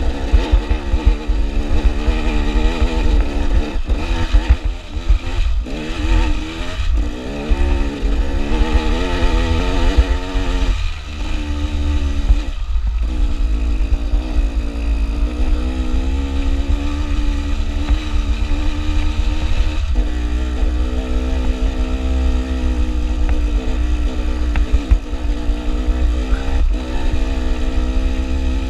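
Dirt bike engine running under load on a rough climb, its note rising and falling with the throttle and breaking off briefly several times as the rider shifts or rolls off. A heavy wind rumble on the microphone runs underneath.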